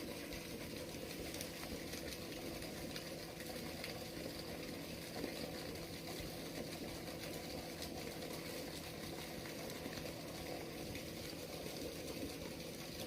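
Steady rush of ebb-tide water flowing out through a small seaside sluice gate, with a faint steady hum and a few light clicks.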